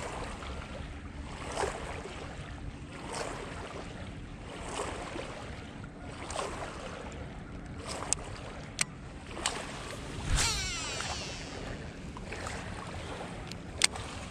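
Wind on the microphone and water lapping, with the clicks of a baitcasting reel being handled; about ten seconds in, a swish and a falling whirr.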